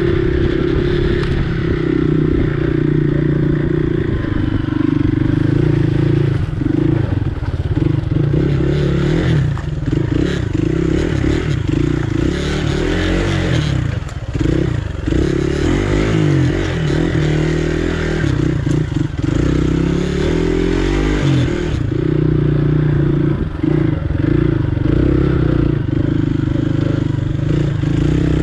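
Dirt bike engine running under throttle over rough, rutted ground, its revs rising and falling as the rider works the throttle. Knocks from the bike jolting over the ruts break in, most often in the middle while it crosses a muddy stretch.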